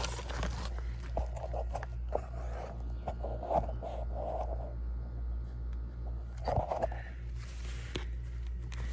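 Scattered scrapes and clicks from handling, over a steady low hum.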